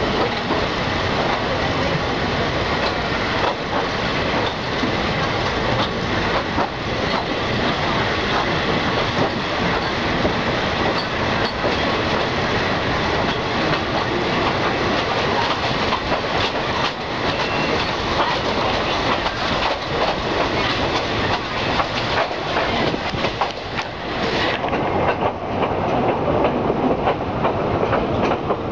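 Passenger train running on the rails, heard from an open carriage window: steady running noise of the coaches, with the clickety-clack of the wheels over rail joints. About 24 seconds in, the sound turns duller as its hissy top end drops away.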